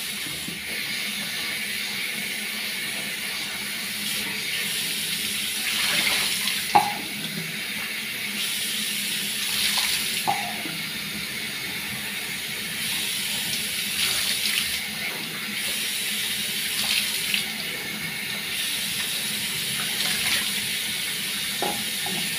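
A bathroom tap running steadily into a sink while foaming cleanser is rinsed off a face with handfuls of water, with a few louder splashing swells. The water stops abruptly at the very end.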